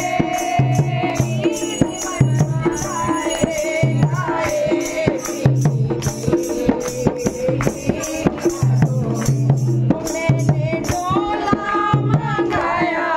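Women singing a Hindu devotional bhajan in a steady rhythm, accompanied by a hand-played dholak drum and wooden kartal clappers whose metal jingles rattle on every stroke.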